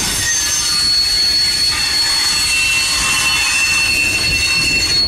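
Freight train rolling past, its wheels squealing on the rails in several steady high-pitched tones over a continuous rumble.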